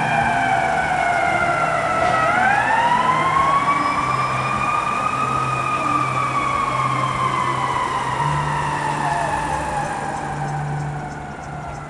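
Fire truck siren wailing in one slow cycle. The pitch slides down, sweeps back up about two seconds in, then falls slowly and fades near the end as the truck moves off.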